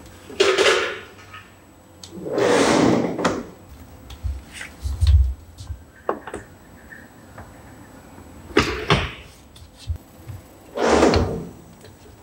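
A roll-out vehicle awning being handled and fitted on a truck roof: four long sliding scrapes as its tubes and case are pushed along the mounts, with clicks and knocks in between and a dull thump about five seconds in.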